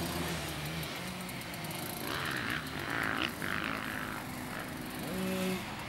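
Small minicross dirt bike engine running, its pitch shifting with the throttle. There is a louder rasp about halfway through and a short rev near the end.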